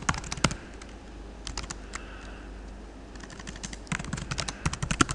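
Typing on a computer keyboard: quick runs of key clicks, sparser in the middle and then a fast run near the end.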